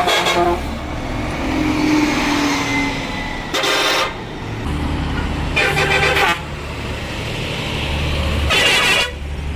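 Hino bullet bus horn sounding in four short blasts of about half a second each, over the steady low hum of the bus's running engine.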